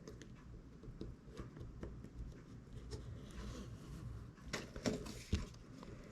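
Faint taps and soft clicks of fingers pressing an iPhone 6s display into the edges of its frame, with a few sharper clicks a little past halfway.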